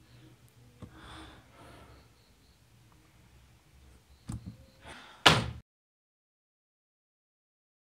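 Quiet room sound with a breathy sigh, a few clicks on a laptop keyboard, then a short, sharp, loud hit a little after five seconds, after which the sound cuts to dead silence.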